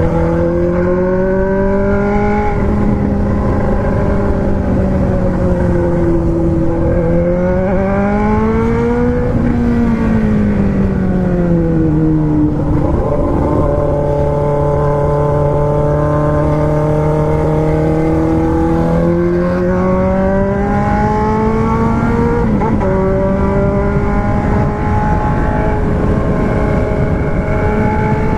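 Four-cylinder car engine running hard at high revs, its pitch rising and falling with the throttle and dropping abruptly a few times, as at gear changes.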